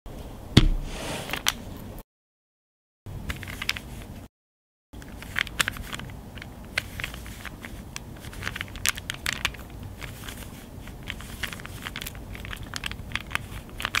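Plastic Rubik's Cube being turned quickly by hand, an irregular run of clicks and scrapes as its layers rotate. A heavier knock comes just after the start, and the sound drops out to silence twice in the first five seconds.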